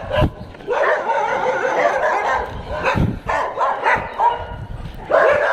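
Several dogs barking and yelping over one another in bursts, with a couple of sharp knocks in between.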